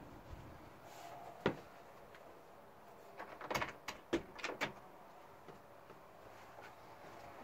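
Caravan's wooden interior door clicking shut, followed a couple of seconds later by a quick run of five or six sharp knocks and rattles.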